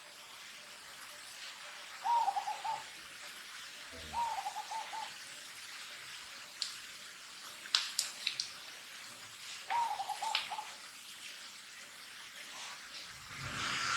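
Three short, wavering animal calls, each under a second and pitched about the same, at roughly two, four and ten seconds in. A few sharp clicks fall between the last two calls.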